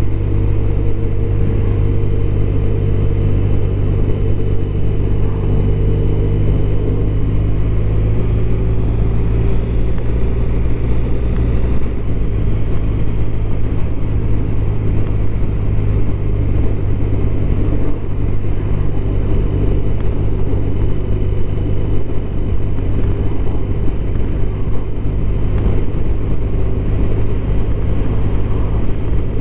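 BMW R1200RT's boxer-twin engine running steadily while riding, heard from on the bike, with a slight change in engine note about ten seconds in.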